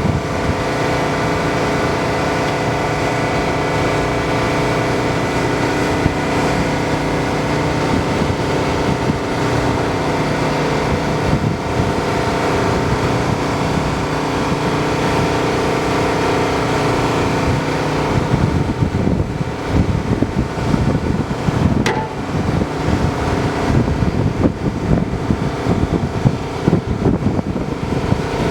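Volvo EW160D wheeled excavator running, a steady engine sound with several held tones; about 18 seconds in the sound turns uneven and fluttering.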